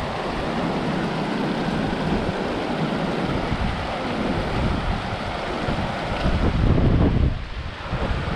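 Wind blowing across the microphone, a steady rushing noise with low rumbling gusts that swell about seven seconds in, over the rush of hot-spring runoff water flowing down the terraces.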